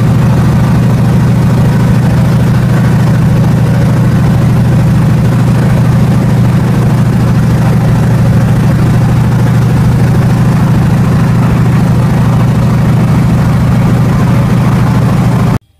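Pratt & Whitney R-985 nine-cylinder radial engine running steadily with its propeller, heard from the open cockpit of the biplane, on its newly replaced number two cylinder. The sound cuts off suddenly near the end.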